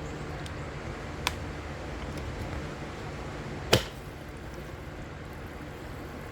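Two sharp knocks from parts being handled while a chainsaw is serviced: a light click about a second in, then a louder knock a little past the middle, over a steady low hum.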